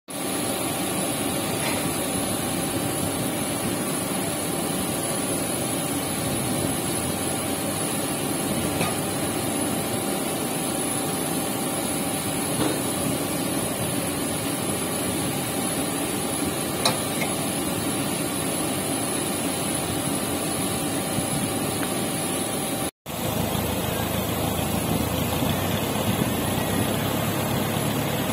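Steady mechanical drone and hiss of aircraft and ground equipment on an airport apron, with a faint steady tone and a few light metallic clicks as the aircraft towbar is handled. After a cut about 23 s in, a lower engine hum joins, from the tow tractor running close by.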